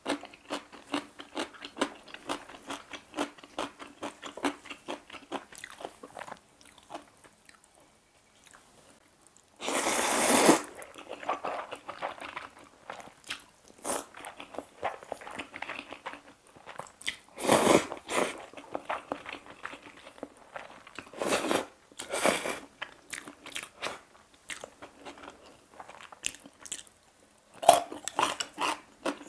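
Close-up eating sounds: rapid crisp crunching of chonggak (ponytail radish) kimchi being chewed, then four loud slurps of noodles with softer chewing between, and crunching again near the end.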